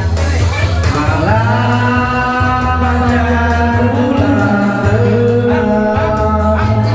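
Music with a singing voice holding long notes, one sliding up about a second in, over a heavy, steady bass line.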